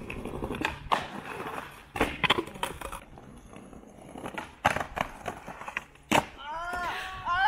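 Skateboard rolling over pavement, with several sharp clacks of the board being popped and landing. Short high-pitched calls that rise and fall start near the end.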